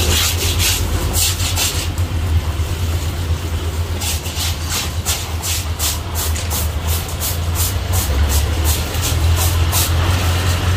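Water from a garden hose spraying and splashing on a tree trunk and its roots, in short repeated spurts, over a steady low machine hum.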